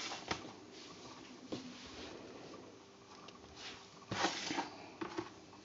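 Faint handling noise: soft rustles and light clicks, with a louder brief rustle about four seconds in.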